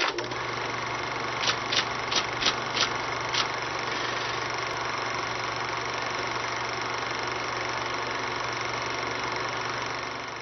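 Steady mechanical whirring hum, with a quick run of six sharp clicks a second or so in, fading out at the end: the sound bed of an animated logo intro.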